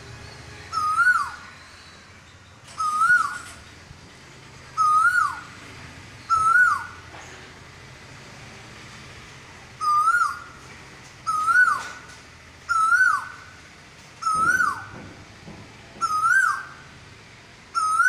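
Asian koel (male) calling its repeated "ku-oo" song: about ten short notes, each rising then dropping sharply, given every one and a half to two seconds, with a pause of about three seconds in the middle.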